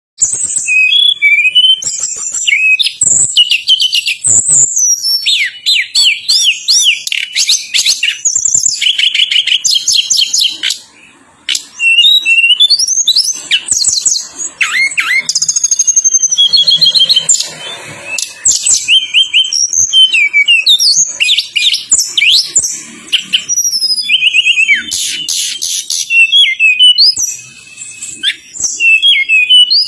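Tledekan gunung songbird singing loudly and without let-up: sharp, rapid-fire notes, tight rolling trills and sliding whistles, with one short break about eleven seconds in.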